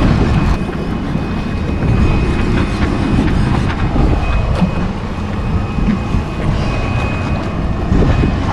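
Steady low rumble of a fishing boat at sea, its engine running under wind and water washing against the hull, with a few light clicks.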